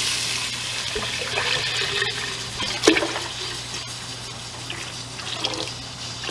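Water poured from a plastic jug into a hot stockpot, splashing and sizzling on the browned bottom as it deglazes the pan, with one sharp knock about three seconds in. The pouring thins out near the end as the jug is tipped back.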